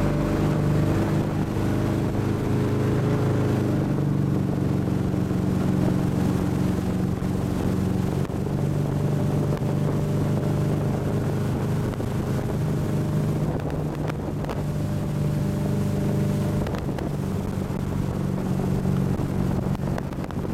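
Motorboat engine running steadily at towing speed, with wind buffeting the microphone.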